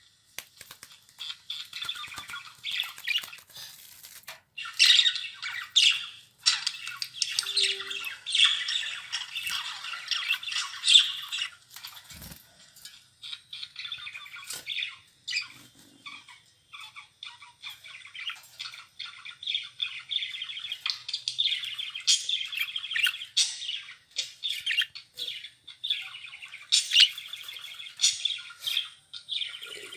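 Budgerigars chattering and warbling, a fast, broken stream of high chirps and squawks with a few short pauses.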